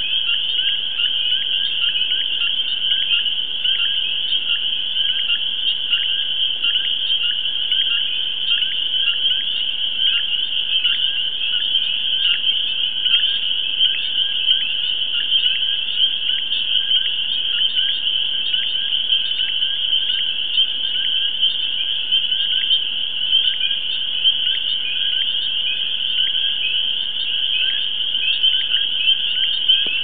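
A chorus of many frogs calling over one another: a dense, steady, high-pitched din of short overlapping calls that never breaks.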